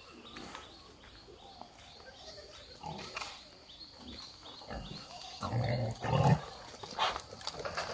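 Pigs grunting. Little is heard for the first few seconds, then a run of low, short grunts in the second half, the loudest about six seconds in.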